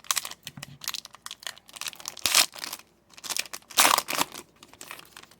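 Foil trading-card pack wrapper being torn open and crinkled by hand: a run of irregular crackles and rustles, with louder crinkles about two and a half and four seconds in.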